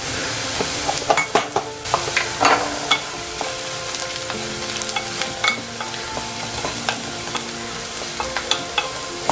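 Chopped onions sizzling in hot oil in an aluminium pressure cooker pan, with a spatula stirring and scraping against the pan in a run of sharp clicks over the steady sizzle.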